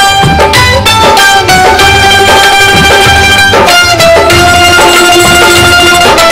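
Instrumental passage of a Bengali film song: melody instruments on long held notes over a steady drum beat.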